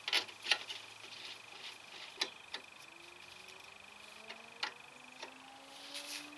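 Light metallic clicks and knocks as a car's front brake caliper and its slide pins are worked by hand, the strongest in the first second and another about two seconds in. A faint steady high whine runs underneath.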